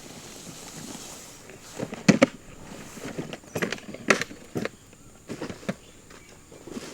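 A handful of sharp, irregular knocks and clicks from tents being pitched, with two close together about two seconds in and more a little later, over light rustling.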